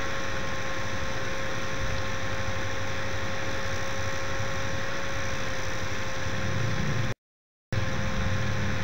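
Steady hiss and low hum of the recording's background noise, with a faint steady tone over it. About seven seconds in, the sound drops out to total silence for half a second, then the same hiss returns.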